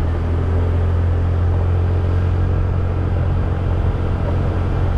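Motorcycle riding along the road: a steady low engine hum and rumble mixed with wind noise, holding an even note with no revving.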